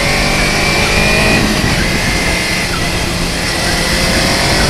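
Motorcycle engine running at highway speed under heavy wind rush, its pitch rising gently twice as the throttle opens.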